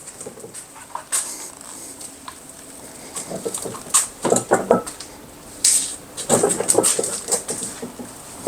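Bauer rolling toolbox loaded with 245 pounds being pulled along on its wheels. The wheels and plastic body make irregular clicks, knocks and rattles, busiest about halfway through and again near the end, as the load strains the axle.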